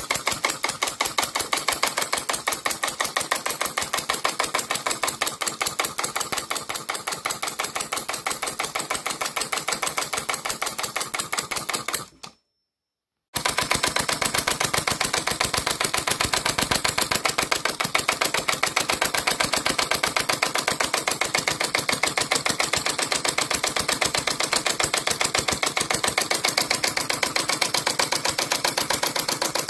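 Model open-crank four-stroke engine, 24 mm bore and stroke, running with a rapid, even beat of sharp clicks. The sound cuts out for about a second near the middle, then resumes unchanged.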